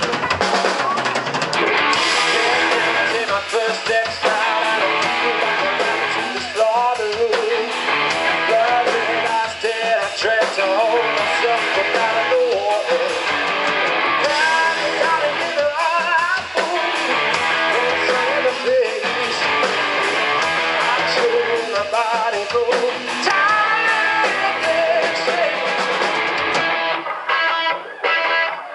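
Live rock band playing: electric guitars over a drum kit, with a wavering lead line. The low end drops away briefly near the end.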